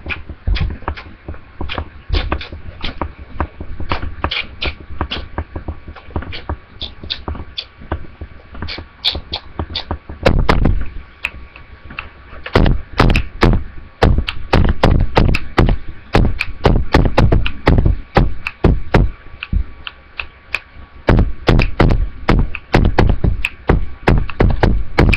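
A person beatboxing: mouth-made kick-drum thumps with snare and hi-hat clicks in a quick rhythm. The rhythm is sparse and lighter at first, then louder and denser from about ten seconds in.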